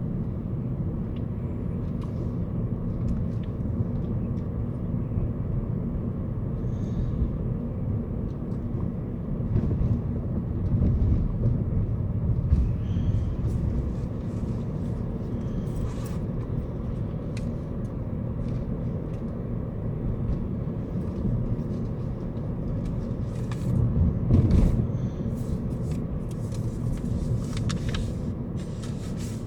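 Car on the move: steady low road and engine rumble, swelling louder twice, about ten seconds in and again near twenty-four seconds.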